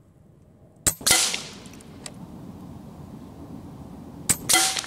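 Hatsan Factor RC regulated PCP air rifle firing twice, about three and a half seconds apart. Each shot is a sharp click followed at once by a louder crack that trails off.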